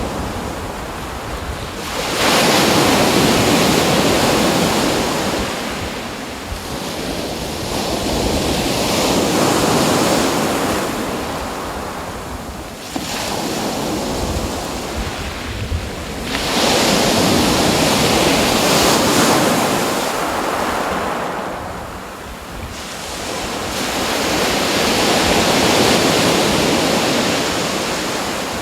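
Ocean waves breaking on a shore, in about five surges of rushing water that come in every few seconds. Several surges start abruptly, and each one washes out over a few seconds.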